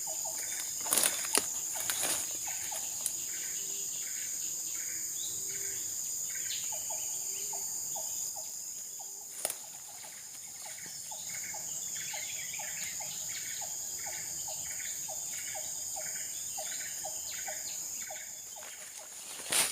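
Outdoor wildlife sounds: a steady high insect drone with a rhythmic call repeating about twice a second. About a third of the way in, a second, lower call joins, pulsing slightly faster. A few sharp clicks come near the start and about halfway.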